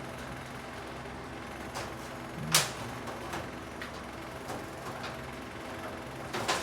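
Irregular sharp knocks and taps, the loudest about two and a half seconds in, over a steady engine-like hum.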